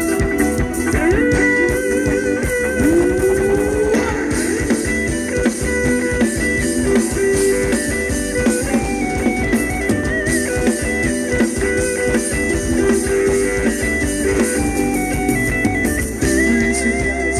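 Live Thai ramwong band music, instrumental: a melody moving in steps over a steady, driving beat.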